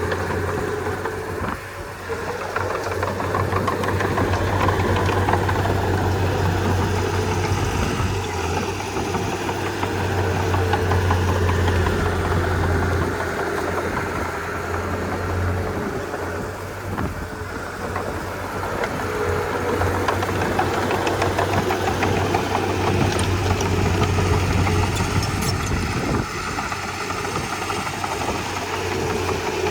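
Komatsu D31P bulldozer's diesel engine running continuously, its loudness dipping and swelling a few times as it works.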